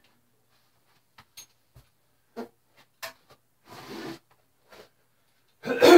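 Scattered light clicks, taps and a brief rub of metal exhaust parts being handled while a short aftermarket muffler is fitted to a Suzuki Hayabusa, with one louder brief sound near the end.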